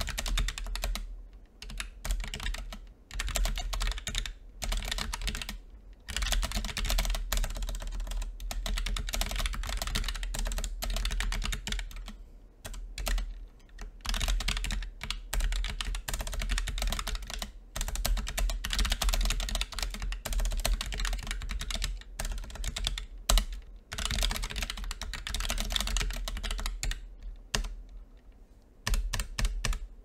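Fast typing on a Roccat Vulcan II Mini 65% keyboard with Titan II optical linear switches and low-profile keycaps: a rapid, continuous clatter of keystrokes, broken by short pauses every few seconds and thinning out near the end.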